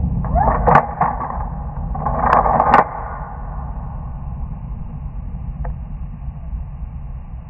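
Shotgun: two sharp cracks about two seconds apart, with a faint click near the end, over a steady low rumble.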